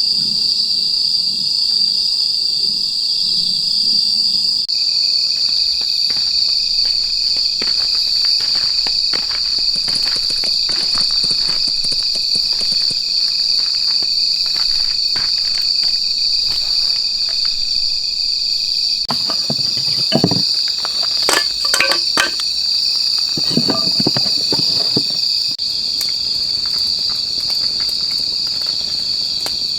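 A steady, high-pitched chorus of insects chirping throughout. Scattered clicks and knocks come through, thickest about two-thirds of the way in.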